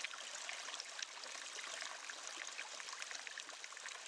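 Shallow Mhadei (Mandovi) river running over rocks: a steady, faint rush and trickle of water with scattered small ticks.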